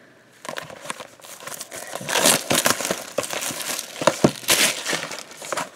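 Plastic shrink wrap being torn and crinkled off a trading card box. It starts faintly about half a second in and gets louder after about two seconds, with many sharp crackles.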